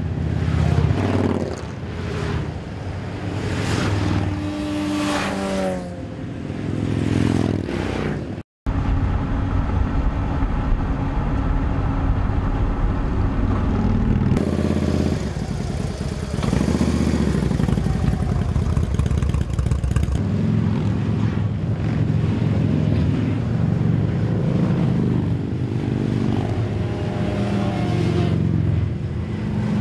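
A column of large touring motorcycles riding past, engines running steadily, with several bikes passing close in the first few seconds, their pitch falling as each goes by. The sound cuts out for a moment about eight seconds in.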